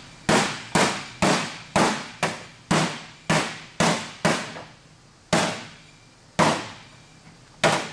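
Hammer-and-dolly blows on a dented aluminum fender panel, each strike a sharp ringing metal knock, pounding the dents back out. About two blows a second for the first half, then three slower, spaced blows.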